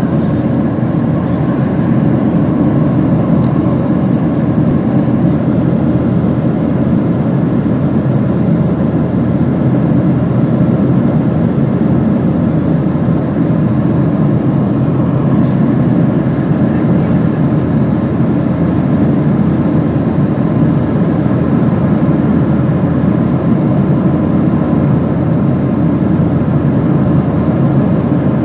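Airplane engines and airflow heard from inside the passenger cabin: a loud, steady rumble with a faint steady whine above it.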